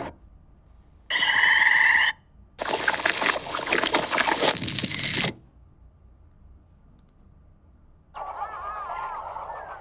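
Pond sound-effect samples previewed one after another, each starting and cutting off abruptly. About a second in there is a short, pitched call. From about 2.5 to 5 s there is a stretch of splashing water. From about 8 s geese or other fowl start honking and calling over a faint outdoor background.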